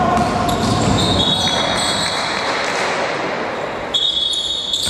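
Basketball game on a hardwood gym floor: the ball bouncing, sneakers squeaking and players' voices, echoing in the large hall. A shrill high squeal starts suddenly about four seconds in.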